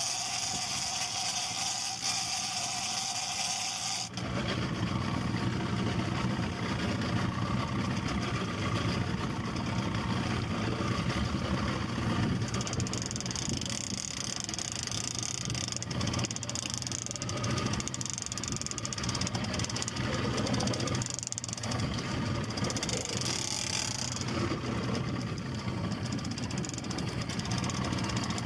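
Boat engine running steadily under wind and sea noise. A different, hissier sound fills the first few seconds before the engine hum comes in.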